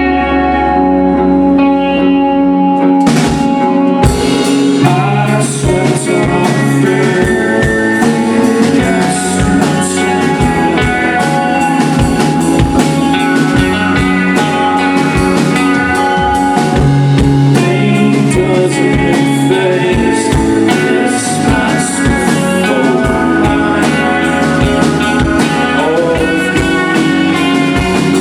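Rock band playing: sustained electric guitar chords, with the drum kit coming in on a loud hit about three seconds in and then keeping a steady beat under the guitars.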